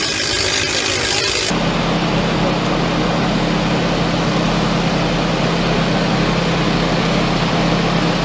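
An engine running steadily with a low, even hum, coming in abruptly about a second and a half in after a short stretch of hiss.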